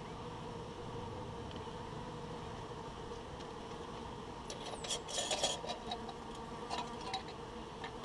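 Honeybees buzzing steadily around the hive, with clinking and rattling as feeder jars are handled about five seconds in and again briefly near the end.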